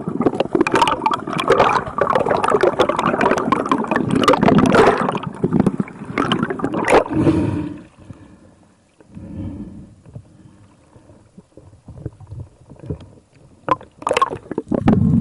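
Water splashing and gurgling close to the microphone, dense and choppy for the first eight seconds, then dropping to a quieter wash with a few short splashes, one louder near the end.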